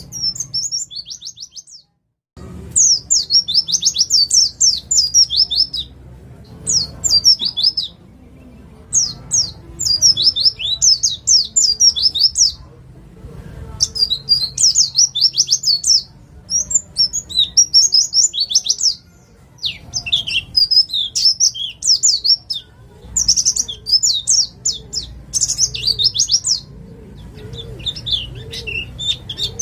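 A pleci (East Java white-eye) singing in rapid 'nembak' bursts: fast strings of high chirps in phrases of one to two seconds, with short pauses between. The sound drops out completely for a moment about two seconds in.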